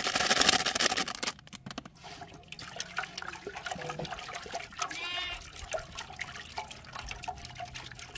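A brief loud rush of noise in the first second, then scattered small clicks and rustles, and a sheep bleats once, faintly, about five seconds in.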